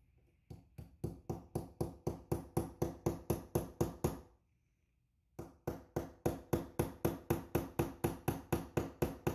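Small hammer rapidly tapping a pin punch, metal on metal, driving the securing plate retaining pin into a Desert Eagle hammer mechanism housing. Two runs of quick, even taps, about five a second, with a brief pause between them.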